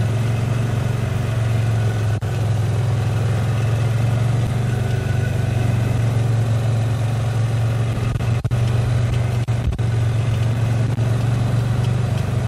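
Vehicle engine running steadily at low speed, a constant low drone as the vehicle rolls slowly.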